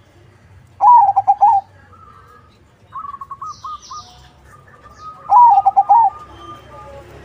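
Perkutut crossing (zebra dove) cooing: two loud phrases of quick rippling coo notes, about a second in and again about five seconds in, with fainter coo notes between them. Brief high chirps from other birds sound in the middle.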